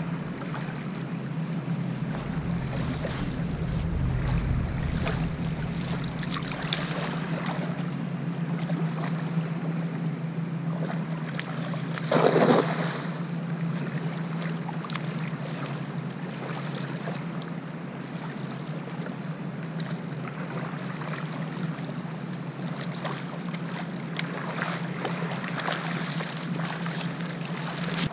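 Wind on the microphone and small waves washing on a sandy shore, with the soft slosh of wading. About twelve seconds in comes a brief loud splash: a cast net landing on the water.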